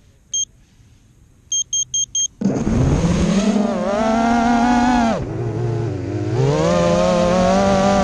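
One short electronic beep, then four quick beeps, then a 5-inch FPV race quadcopter's brushless motors spool up sharply about two and a half seconds in to a loud whine of many stacked tones as it lifts off. The pitch dips around five seconds in as the throttle eases, then climbs again a second or so later.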